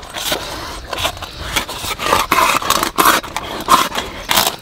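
A large, sharp knife cutting into a whole stingray, a run of rough scraping strokes as the blade works through the fish.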